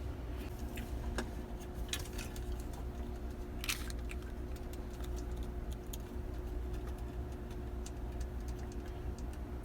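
Scattered small clicks and light metallic taps from hand work on a crane-game claw, with one sharper scrape about a third of the way in, over a steady low hum.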